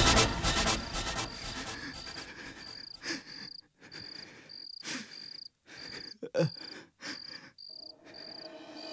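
Cricket chirping in a steady rhythm, about two high chirps a second, with a few faint clicks among them.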